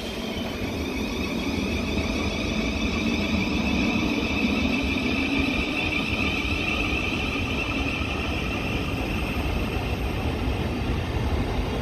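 Thameslink Class 700 electric multiple unit pulling out of the platform and picking up speed: a steady high electric whine from its traction equipment over a low rolling rumble that grows louder over the first few seconds.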